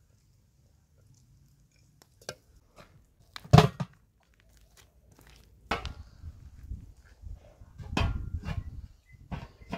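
Metal cooking pot and lid being handled: scattered clicks and knocks, the loudest about three and a half seconds in, as the lid is set on the pot and pressed down.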